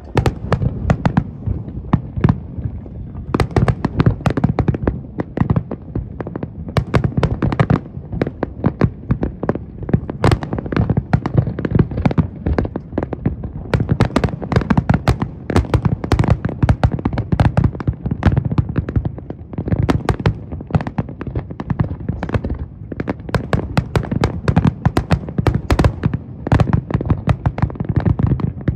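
Aerial fireworks display: a dense, unbroken barrage of bangs, several a second, over a continuous low rumble.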